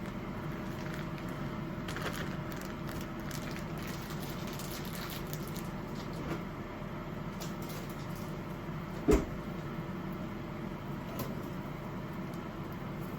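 Home kitchen cooking sounds: a steady hum under light clicks and small clatters, with one sharp knock about nine seconds in.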